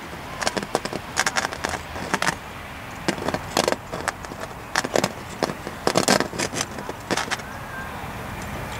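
A scatter of sharp, irregular clicks and taps over a steady low outdoor rumble.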